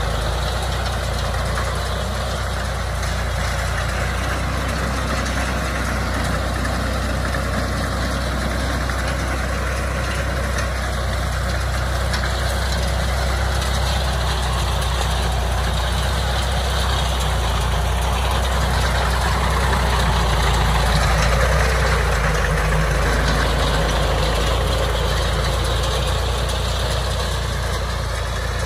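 Ford tractor's diesel engine running steadily while it pulls and drives a round baler through straw, with the baler's machinery working alongside; the sound swells a little about two-thirds of the way in.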